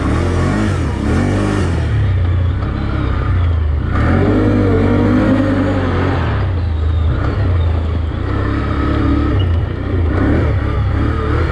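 Can-Am ATV engine running under way, its pitch rising and falling repeatedly as the throttle is opened and eased off.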